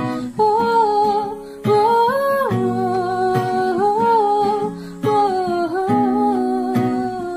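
Background music: a vocal melody in long held notes over plucked acoustic guitar.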